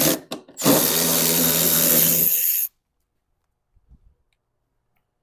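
Handheld power tool motor: a quick blip, then a steady run of about two seconds that cuts off sharply.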